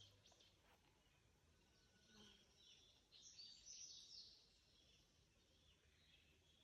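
Near silence outdoors with faint bird chirps, a cluster of them about three to four seconds in.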